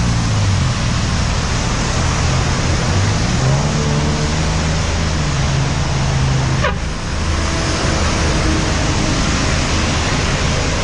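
Road traffic from a passing bus convoy: a steady wash of road noise with low bus engine hum that shifts in pitch as the vehicles go by.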